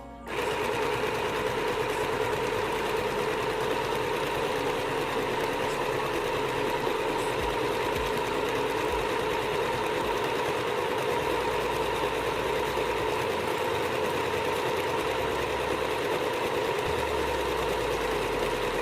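Mini electric sewing machine running steadily at an even speed, its small motor humming as it stitches; it starts just after the beginning and stops near the end.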